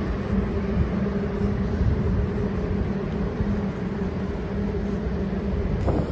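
Steady low rumble of a moving vehicle, with a constant low hum running through it.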